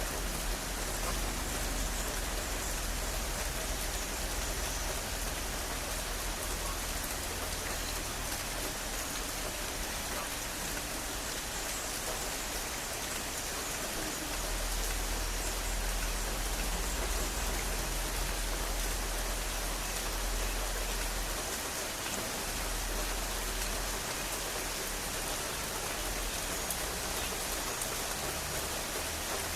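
Heavy, steady rain falling and pattering on surfaces, a dense even hiss.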